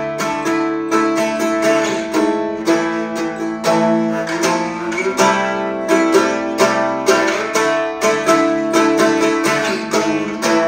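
Eight-string mandolin picked with a plectrum, strumming chords in a steady, regular dance rhythm: the accompaniment part of a reinländer.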